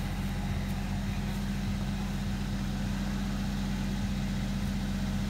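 A motor running steadily, making an even low hum with no change in pitch.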